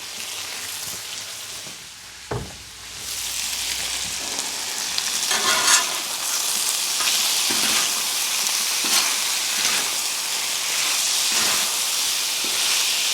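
Chicken pieces in barbecue sauce sizzling on a Blackstone flat-top griddle as they are stirred and mixed, with short scrapes and knocks on the steel. The sizzle grows louder about three seconds in.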